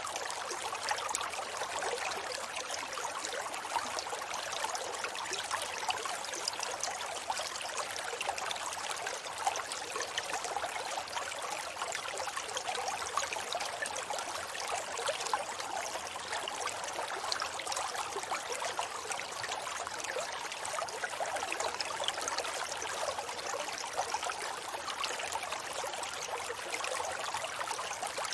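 River water flowing steadily over stones, a continuous rushing and trickling with small splashes.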